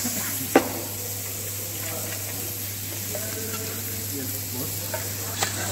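Calamari and meat sizzling on a steel teppanyaki griddle, a steady hiss over a low hum. A single sharp knock about half a second in.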